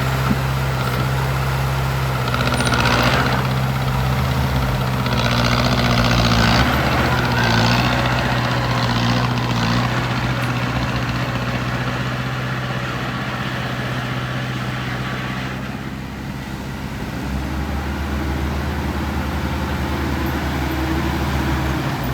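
Heavy vehicle engine running steadily at a low, even pitch, with several short hissing bursts in the first eight seconds. A deeper low rumble joins about two-thirds of the way through.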